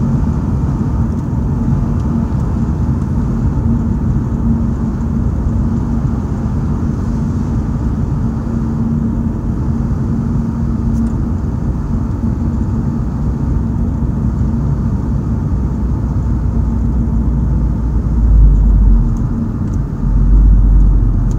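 Car interior driving noise: steady road and engine rumble with a faint steady hum, heard from inside the cabin. Two stronger low rumbles come near the end.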